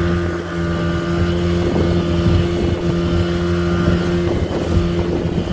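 Speedboat engine running steadily under way, a constant drone over the rush of water past the hull.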